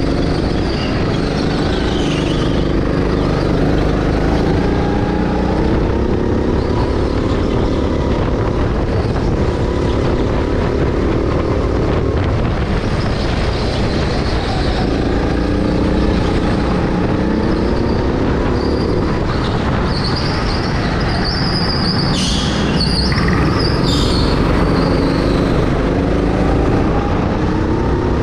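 Go-kart engine running hard, its pitch rising on the straights and falling into the corners. About three quarters of the way through there is a brief high squeal and two sharp clicks.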